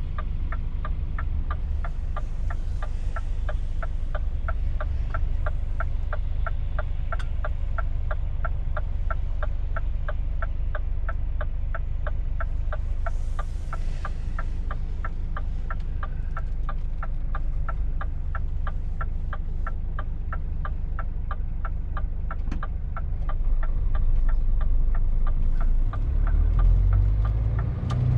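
Scania truck's diesel engine idling with a steady low rumble, heard inside the cab, while the turn indicator ticks evenly. A little past three-quarters of the way through, the ticking stops and the engine grows louder as the truck pulls away.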